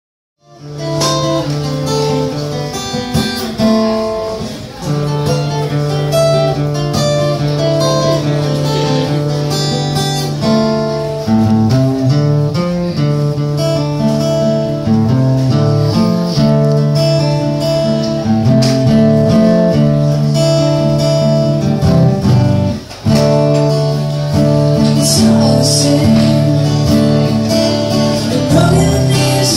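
Acoustic guitar played live, chords strummed and picked through an instrumental intro.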